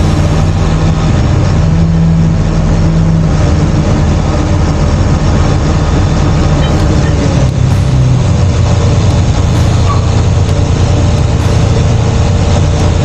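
Crane's diesel engine running loudly under work, its note higher for the first few seconds and dropping about eight seconds in as the revs change.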